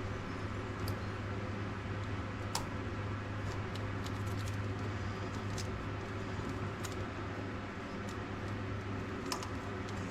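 Scattered light clicks and small rattles of parts being handled during hand work on the engine wiring, over a steady low hum.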